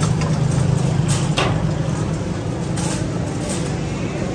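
Steady low motor-like hum with a noisy background and a couple of sharp clicks about a second in.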